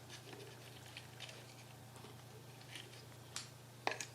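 Faint handling sounds of the lantern's plastic parts and circuit board: scattered light clicks and rustles, with two sharper clicks near the end.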